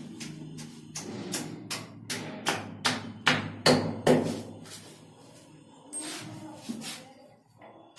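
Hammer blows on a chisel cutting into a plastered wall, a steady run of sharp knocks about two or three a second, loudest around the middle, then a couple of slower, lighter strikes near the end.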